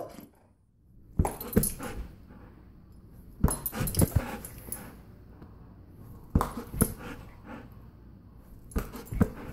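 Golden retriever vocalizing in four short bursts of yips and whines, about a second, three and a half, six and a half and nine seconds in.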